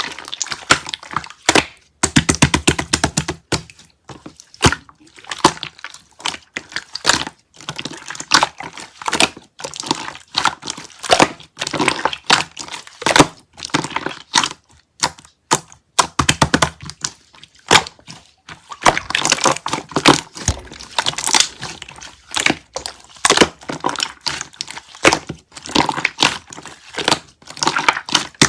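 Dense, irregular crackling and clicking in quick runs, broken by short pauses.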